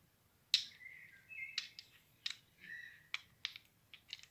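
Small glass nail polish bottles clicking and clinking against one another as they are handled: a scattered series of sharp knocks, some with a short ringing tone after them.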